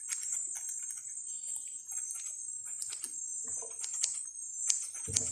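Scissors snipping through beard hair in short, irregular clicks, over a steady high insect drone.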